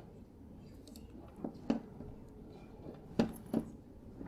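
Quiet room tone with a few soft clicks, two pairs about a second and a half apart.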